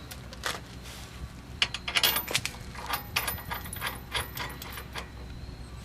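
Irregular light metallic clicks and clinks of hand tools on the new wheel hub's bolts as they are threaded in and lined up, with a faint high whine behind some of them.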